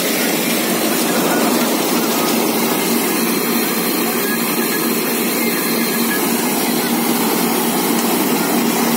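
Combine harvester running steadily with its unloading auger engaged, pouring threshed paddy grain into a trailer: a constant machine hum with the rush of the grain stream.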